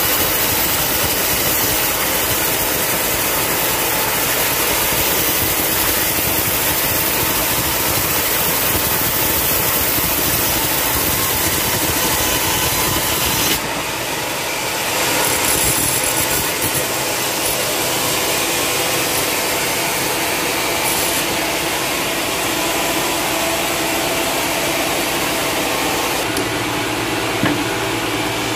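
Sawmill band saw running and cutting lengthwise through a long, dry, hard timber: a steady, loud sawing noise over the machine's running. The sound shifts abruptly about halfway through, and a short click comes shortly before the end.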